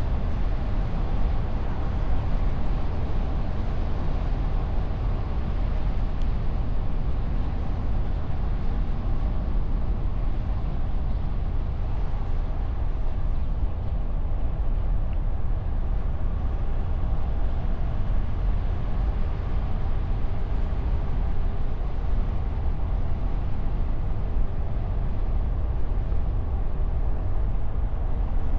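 Car driving steadily along the road, heard from a microphone on the bonnet: an even rush of wind and tyre noise, heaviest at the low end, with no change in pace.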